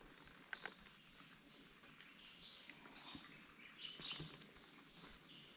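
Steady high-pitched drone of an insect chorus, with a few faint clicks.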